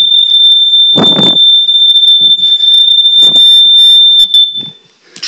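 Smoke alarm sounding a loud, steady, high-pitched tone that cuts off about four seconds in as it is shut off during a test. A short bump comes about a second in, and a few clicks follow a little after three seconds.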